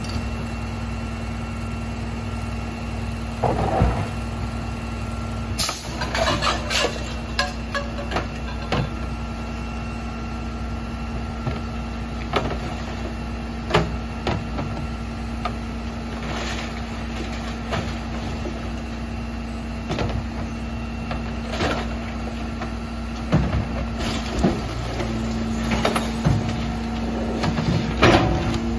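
Rear-loader garbage truck's diesel engine idling steadily while small plastic recycling bins are tipped into the hopper: repeated knocks and clatters of the bins striking the loading edge and recyclables dropping in. The engine note grows somewhat louder near the end.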